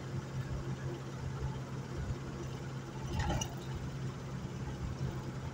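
Steady in-cab drone of a vehicle's engine and tyres while driving at highway speed, with one brief sharp noise about three seconds in.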